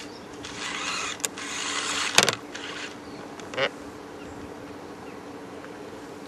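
Electric remote-control car running, with a rushing noise for the first couple of seconds, a sharp click, then a louder knock about two seconds in; after that only a faint steady hum.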